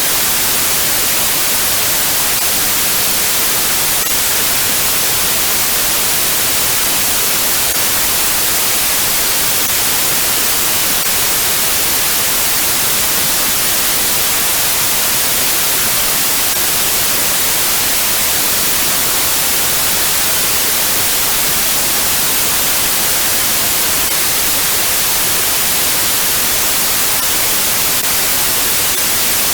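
Steady white noise: a constant, even hiss, bright and strongest in the high frequencies, with no change in level.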